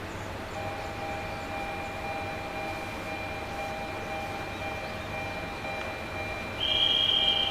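Diesel railway engines running at a station, a steady low rumble. Steady ringing tones join in about half a second in, and a loud shrill note starts near the end.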